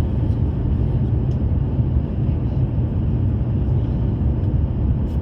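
Steady low rumble of airliner cabin noise inside an Airbus A350-900, its Rolls-Royce Trent XWB engines and airflow heard from the economy cabin.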